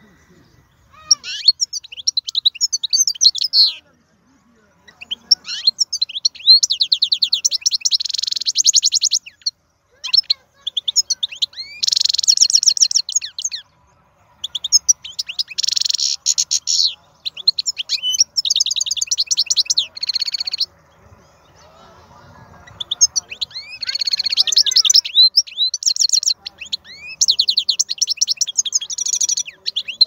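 Wild-caught European goldfinch singing: fast twittering runs of rapid high notes and trills, in about five long bursts separated by short pauses.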